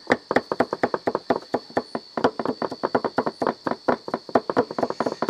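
Knife rapidly chopping onions on a cutting board, an even run of about seven strokes a second. A steady high insect drone runs behind it.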